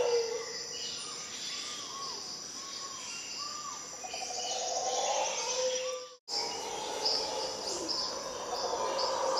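Rainforest birds calling in short arching whistled notes, over the deep rough roar of mantled howler monkeys that fades away at the start and swells again in the middle. The sound drops out completely for a moment just after six seconds.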